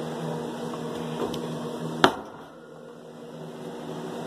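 Steady low hum of a running appliance, broken by one sharp knock about two seconds in.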